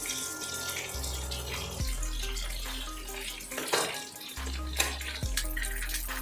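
Masala-coated fish sizzling in shallow hot oil as the fried pieces are lifted out with a steel spatula, with a couple of sharper clicks from the spatula about halfway through.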